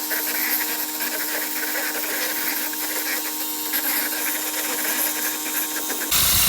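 Pressure washer's turbo (rotating) nozzle spraying a mouldy wooden sign, a steady loud hiss of the water jet. A faint steady hum sits under it, and the sound turns louder and fuller near the end.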